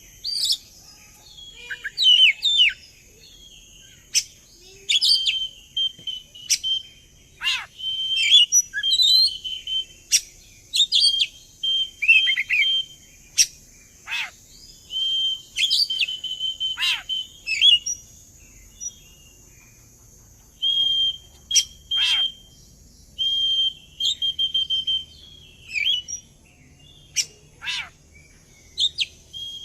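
Oriental magpie-robin (kacer) singing a lure song, the kind played to set other magpie-robins singing. It comes in phrases of clear whistles held near one pitch, mixed with quick sweeping notes and sharp chips, with short gaps between phrases. A faint steady high hiss lies underneath.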